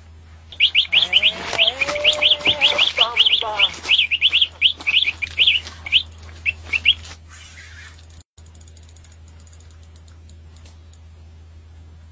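A bird chirping, a quick loud run of short high notes for about six seconds, then stopping.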